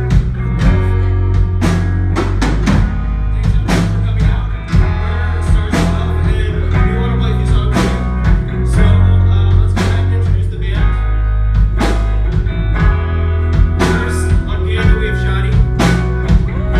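Live rock band playing, with guitar and a drum kit over a heavy bass line, with steady, regular drum hits.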